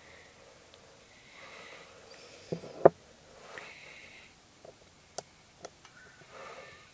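Handling of a small wooden flashlight: two knocks as it is set down on the table, then two sharp clicks from its latching push-button switch as it is pressed and the LEDs come on. Soft sniffing breaths close to the microphone.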